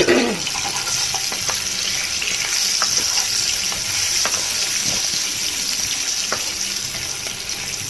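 Potato pieces frying in hot mustard oil: a steady sizzle, with a few sharp clicks scattered through it.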